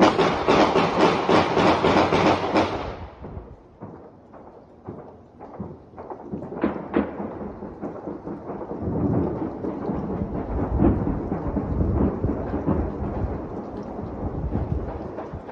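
Distant celebratory New Year's gunfire: a rapid run of shots, about five or six a second, for the first three seconds or so, then a few scattered single shots over a continuous echoing rumble.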